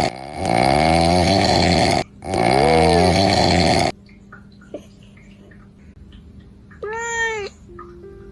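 Loud snoring sound effect: two long, drawn-out snores back to back, then it stops about four seconds in, leaving a low hum. About seven seconds in comes one short meow.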